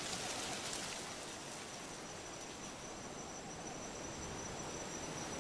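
Steady, high-pitched insect chorus, crickets, over a soft hiss of forest ambience.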